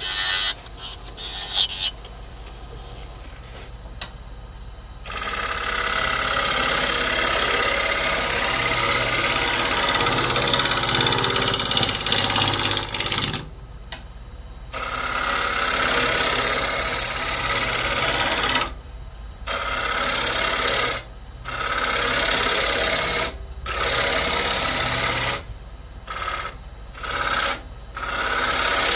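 Turning tool cutting a spinning ash bowl blank on a Laguna Revo wood lathe: a loud, steady rushing scrape while the tool is in the cut. It breaks off for moments several times in the second half as the tool is lifted away, leaving the lathe's motor hum. The first few seconds are quieter.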